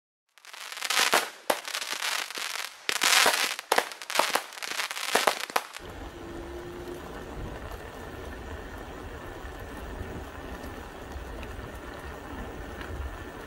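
Loud crackling and popping in quick clusters for about five seconds, then a steady outdoor rumble and hiss to the end.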